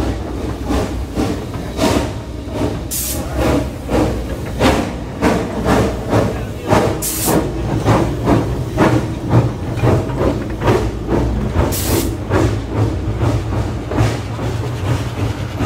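Narrow-gauge steam switcher locomotive passing close by at low speed, with a steady rhythmic chuffing at about two beats a second over a low rumble. Three short, sharp hisses of steam come about three, seven and twelve seconds in.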